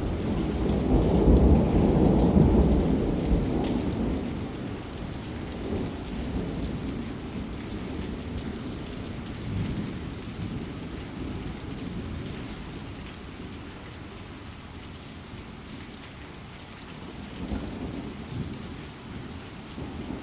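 Steady rain with a long roll of thunder in the first few seconds that slowly dies away, and a fainter rumble of thunder near the end.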